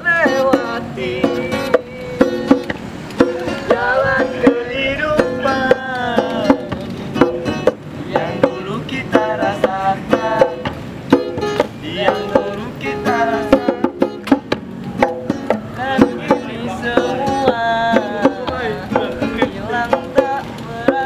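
Music with plucked string instruments playing a melody over a steady beat.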